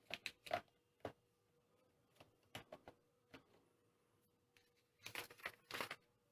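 Faint clicks and light knocks of orange plastic Hot Wheels track pieces being handled and fitted to the plastic launcher base, scattered through the first three seconds. About five seconds in, a short spell of paper rustling as the instruction sheet is handled.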